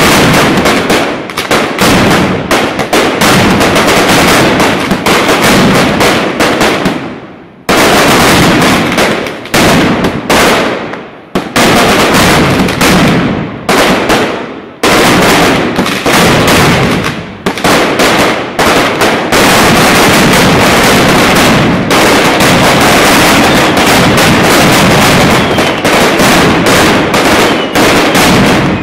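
Mascletà: strings of masclets, loud gunpowder firecrackers, going off in rapid, near-continuous volleys of sharp bangs. The firing thins out briefly three times in the first half, then becomes an unbroken, denser barrage through the rest.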